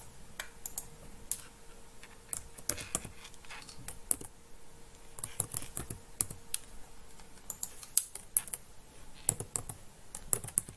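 Typing on a computer keyboard: irregular runs of quick keystroke clicks with short pauses between them, as a username and password are entered.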